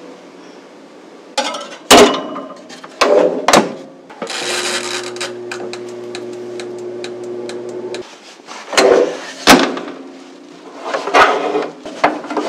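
Countertop air fryer oven being loaded and unloaded: knocks and clunks of a metal cake pan on the rack and the oven door, then for about four seconds the oven running with a steady hum and the rapid ticking of its mechanical timer, then more knocks as the door is opened and the pan taken out.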